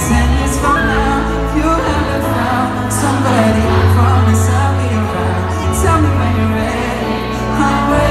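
Live pop music played through an arena sound system: singing over piano and band, with strong bass. Heard from among the audience, with the hall's echo.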